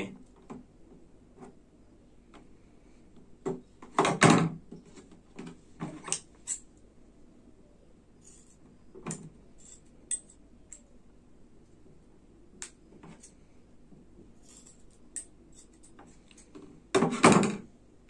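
Scissors snipping through rubber hose, cutting it into small rings: two loud cuts about four seconds in and near the end, with lighter clicks of the blades in between.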